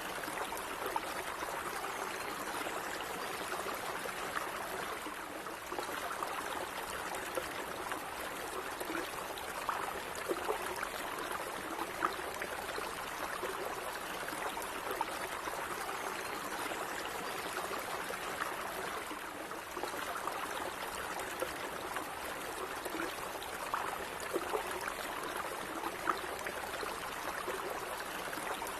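Gently running stream water: a steady babbling flow with small splashes and trickles scattered through it.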